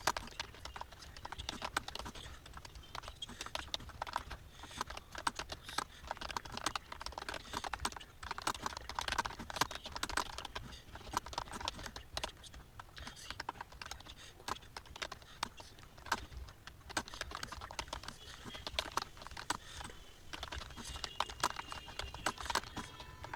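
Fast typing on a computer keyboard: a continuous stream of key clicks with short uneven pauses, over a faint low hum.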